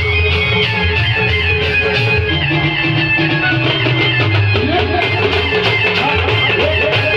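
Band music played loud through a truck-mounted speaker stack: a melody line over a steady beat and strong bass.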